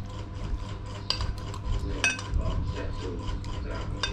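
A metal spoon scraping and clinking against a plate while eating, with sharp clinks about a second in, about two seconds in and near the end, over a steady low hum.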